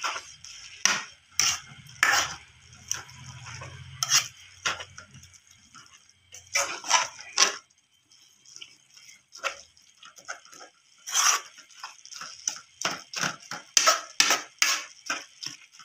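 Metal spatula scraping and knocking against a metal karahi while stir-frying grated radish, in irregular clattering strokes. A faint steady hiss runs under the strokes in the first few seconds.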